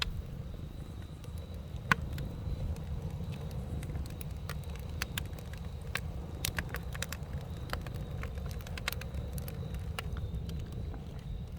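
Campfire crackling: irregular sharp pops and snaps, thickest around the middle, over a steady low rumble.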